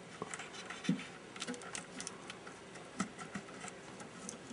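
Light, irregular clicks and rustling from fingers handling a television picture tube's socket and its wiring, with two slightly louder knocks about one and three seconds in.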